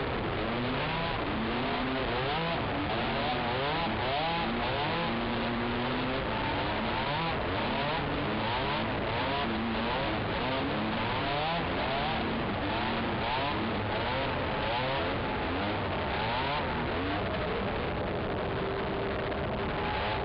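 Racing quad's engine revving up and down over and over, its pitch rising and falling about every second, over a steady rushing noise.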